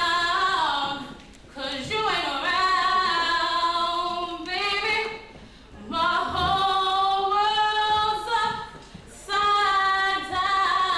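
A young woman singing a cappella into a handheld microphone, in four phrases with short breaks between them, holding long notes.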